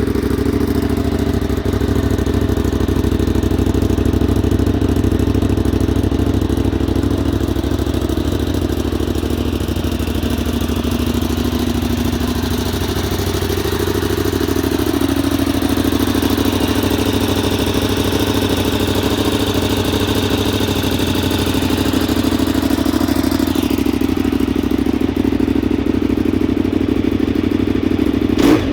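A 2010 KTM 990 Super Duke's 1000 cc 75° V-twin engine idling steadily.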